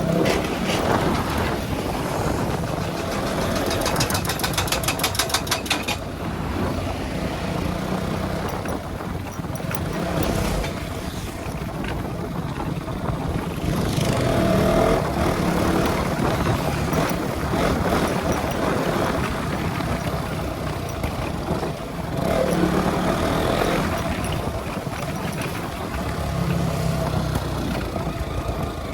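Motorcycle engine running while the bike is ridden, its note shifting with the throttle, with a rapid even fluttering about four seconds in that lasts a couple of seconds.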